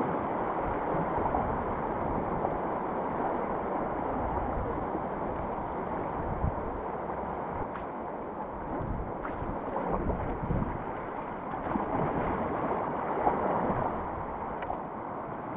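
Steady rush of whitewater on a river run by kayak, with wind buffeting the microphone and a few low thumps.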